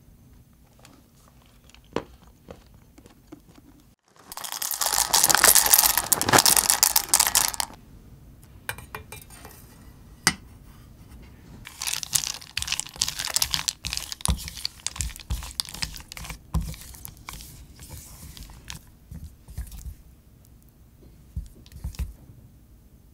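About four seconds in, a loud, dense scratchy rattle lasts about three seconds. Then a silicone spatula stirs couverture chocolate discs in a stainless steel bowl over hot water, scraping and knocking in uneven bursts as they melt.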